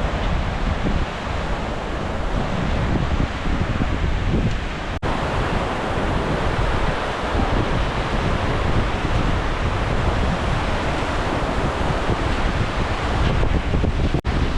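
Wind buffeting the microphone: a steady loud rushing with an uneven low rumble, briefly cut off about five seconds in and again near the end.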